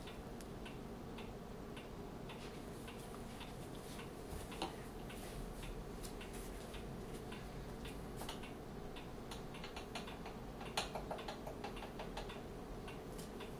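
Faint, irregular light clicks and taps of utensils being handled at a kitchen counter, with a short run of louder taps about eleven seconds in, over a low steady hum.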